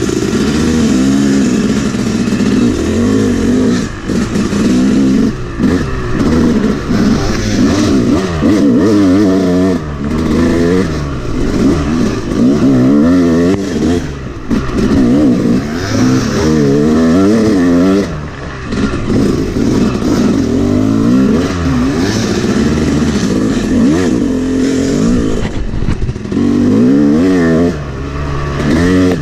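Yamaha 250 two-stroke dirt bike engine being ridden hard, revving up and falling back over and over as the throttle is opened and closed, with a few brief drops where the rider backs off.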